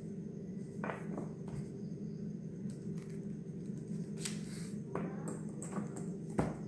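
A metal ruler and paper being handled on a table: soft sliding and rustling, and one sharp knock near the end as the ruler meets the table. A steady low hum runs underneath.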